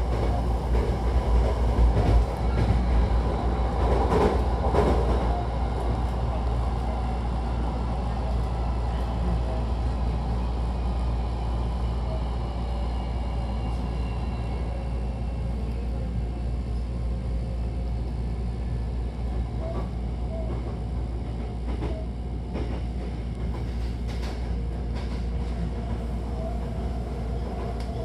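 Hankyu Takarazuka Line electric train running between stations, heard from inside the car: a steady low rumble of wheels on rail, with a few clacks about four seconds in and a faint whine in the middle.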